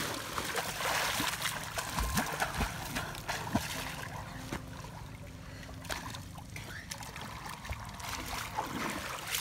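Water splashing and sloshing as children wade and swim through shallow pond water, busiest in the first few seconds and settling to lighter lapping later.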